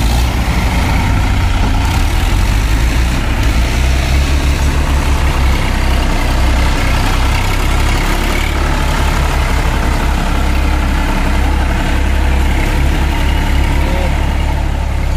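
Diesel tractor engines running steadily under load, among them a Massey Ferguson 7250 DI's three-cylinder engine, with a deep pulsing rumble, while its tyres churn through water and mud.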